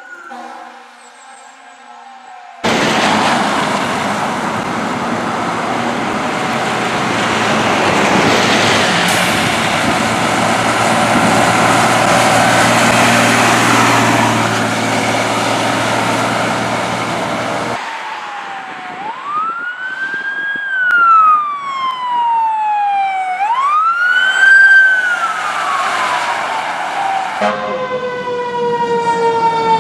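Fire trucks responding. First comes about fifteen seconds of loud, even noise from a fire truck passing close. Then a siren wails up and down twice, each rise quick and each fall slow, and near the end several siren tones slide slowly downward.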